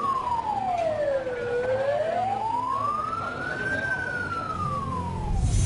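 An emergency vehicle siren wailing, its pitch sliding slowly up and down about once every four to five seconds, over the voices of a crowd. A deep low rumble comes in near the end.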